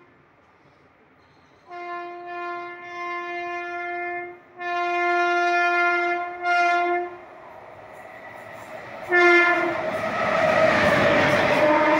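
WAP-7 electric locomotive's horn sounding a string of long blasts between about two and seven seconds in, and a short blast just after nine seconds, as the express approaches at speed. From about ten seconds the rush of the locomotive and ICF coaches passing close by swells up and becomes the loudest sound.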